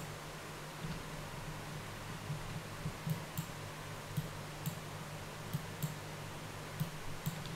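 Computer mouse clicking: a dozen or so single clicks at irregular intervals, selecting vertices one at a time, faint over a low steady hum.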